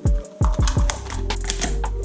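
Background electronic music with a steady beat: deep kick drums that drop sharply in pitch, crisp clicking percussion and held synth tones.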